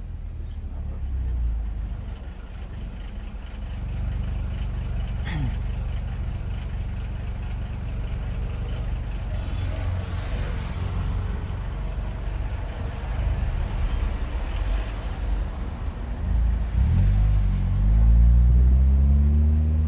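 Hyundai Tucson 2.0's four-cylinder engine heard through an exhaust with the rear muffler removed: a steady low rumble, rising in pitch in the last few seconds as the engine revs up.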